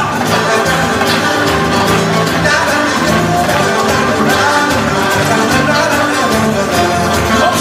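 Brazilian samba music played loudly, with a driving percussion beat and a sung vocal line.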